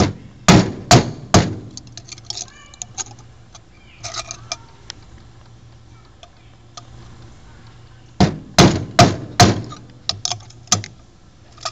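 Hammer blows driving a screwdriver into the corner of an MMX processor's chip to chisel the chip and its black resin out. There is a quick run of four sharp blows, then a few lighter taps and clinks, then a second run of about eight blows near the end.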